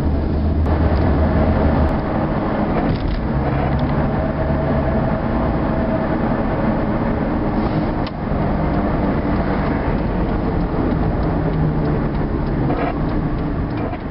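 Road and engine noise heard from inside a moving car's cabin: a steady low rumble with a faint engine hum, dipping briefly about eight seconds in.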